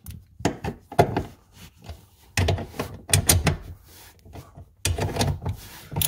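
Bolts and a metal bracket being handled and started by hand: a series of light clicks, clinks and knocks in short clusters.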